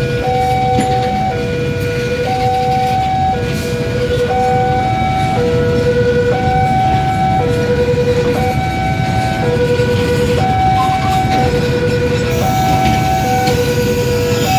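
Railway level-crossing warning alarm sounding steadily: an electronic two-tone signal alternating high and low, about one high-low pair a second, warning that the crossing is closed for a train. A steady low rumble runs beneath it.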